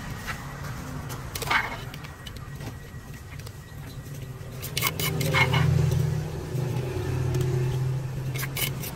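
Low, steady rumble of a motor vehicle's engine, swelling louder about five seconds in, with a few short clinks and scrapes of a metal spoon against a plastic plate as salad is served.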